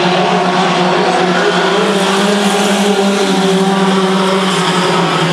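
Several mini-truck engines racing together on a dirt oval, a steady drone of engine notes that waver up and down in pitch as the trucks work through the laps.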